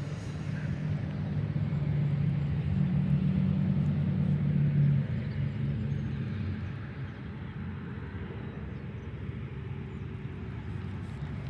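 A motor vehicle's engine humming, growing louder over the first few seconds, then dropping sharply about five seconds in and fading away by about seven seconds, over steady outdoor background noise.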